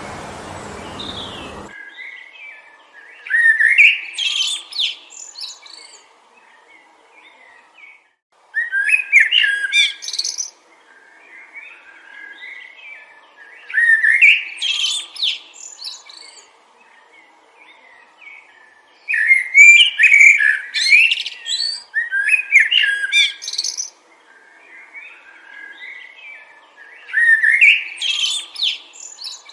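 A songbird singing short, fast, warbling phrases, repeated about every five seconds with pauses between. At the start a wind rush is heard that cuts off sharply about two seconds in.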